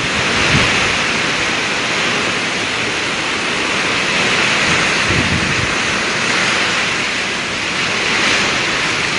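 Typhoon wind and driving rain, a loud steady rush of noise, with deeper gusts about half a second in and again around five seconds in.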